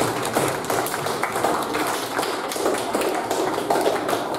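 Audience applauding: many hands clapping in a steady, irregular patter for the winners as they are called up.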